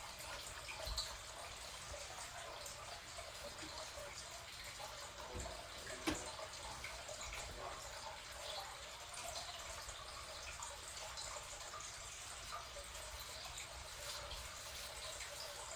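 Faint rubbing and wiping of a damp cloth over a copper fire extinguisher's body, with a few light knocks, the loudest about six seconds in.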